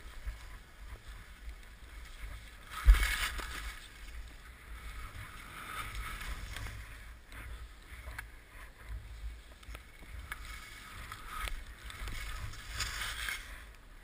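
Skis scraping and hissing through snow in a few swells as the skier turns, over a steady low rumble of wind on the microphone. There is one sharp knock about three seconds in.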